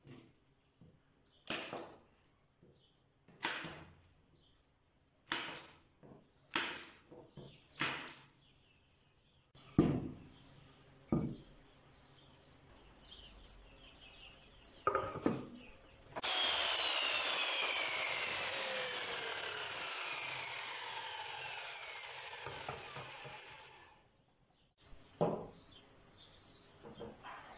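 A hand staple gun snapping into wooden slats, about six sharp clicks a second or two apart, then a couple of heavier thumps. After that a sliding compound miter saw runs for about eight seconds, its pitch falling steadily as the blade winds down.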